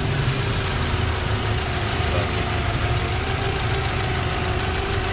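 Mitsubishi four-cylinder car engine idling steadily, having just started on one crank.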